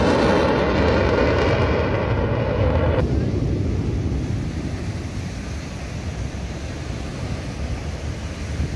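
A military jet makes a low pass with a loud rushing engine roar and a sweeping, phasing tone. About three seconds in, the sound drops abruptly to a duller, fading low rumble, with wind on the microphone.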